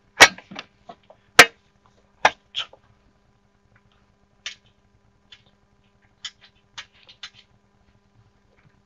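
Sharp knocks and clicks of a ridge mower's V-belt cover being handled and seated back in place: two loud knocks in the first second and a half, two more just after two seconds, then lighter scattered clicks and taps.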